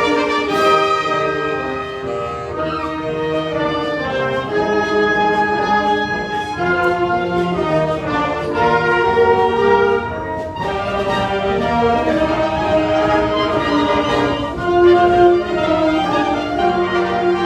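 Orchestral background music, with brass and bowed strings playing held, stepping notes.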